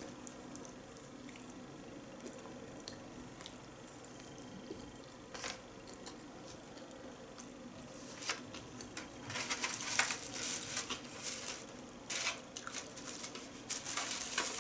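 Soft chewing of a sushi roll. From about eight seconds in, plastic crinkles and rustles and there are quick clicks as a plastic takeout tray and bags are handled.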